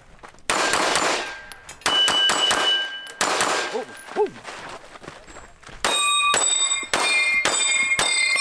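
Pistol shots at steel targets: a few loud shots early on, then a quick string of hits from about six seconds in, each steel plate giving a clear metallic ring.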